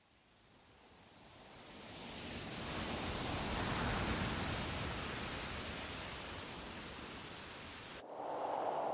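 A rushing noise fades in from silence, swells to its loudest about four seconds in, then eases off. Near the end it cuts off abruptly and a different steady sound takes over.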